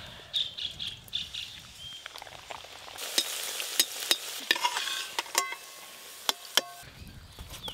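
Hing kachori deep-frying in hot oil in a metal wok, sizzling, the sizzle growing louder about three seconds in. A slotted metal spoon clinks and scrapes against the wok, with a few short metallic rings.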